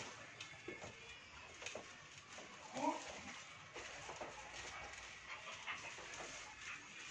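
A short animal cry about three seconds in, over faint scattered clicks and knocks.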